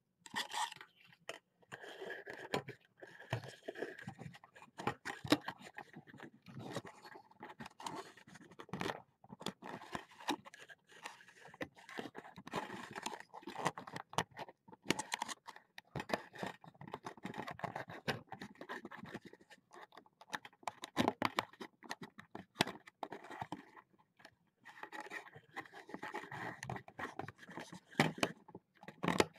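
Irregular scraping, rubbing and clicking of handling noise right at a webcam's built-in microphone as the webcam is moved and brushed against, with a scattering of sharper clicks.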